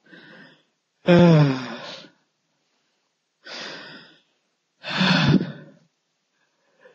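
A man sighing and exhaling heavily, four times with pauses between: a faint breath at the start, a long voiced sigh falling in pitch about a second in, then two breathy exhalations around three and a half and five seconds in.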